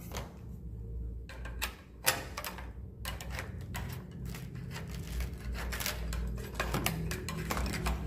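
Long-pole swiftlet-nest harvesting scraper working against a wooden rafter plank, a rapid, irregular run of clicks and scratches with one sharper knock about two seconds in, as it prises a nest loose.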